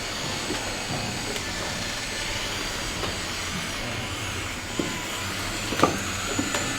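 Steady whirring of radio-controlled model construction machines' small electric motors and drives, with a couple of sharp clicks about five and six seconds in.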